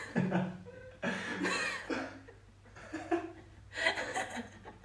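A person chuckling and laughing softly in short bursts.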